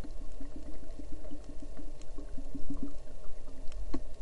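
Muffled underwater sound: rapid bubbling gurgles over a low rumble, thinning out after about three seconds, with a couple of sharp clicks near the end.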